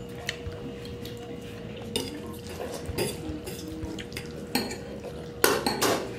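Metal forks clinking and scraping against ceramic plates and a bowl while spaghetti is twirled and eaten, a scatter of small clicks with two louder clinks near the end.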